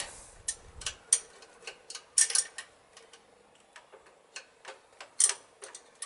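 Spanner clicking and tapping on the brake-pipe union nuts as they are tightened: a dozen or so sharp, irregular metal clicks, the loudest about two seconds in and again near five seconds.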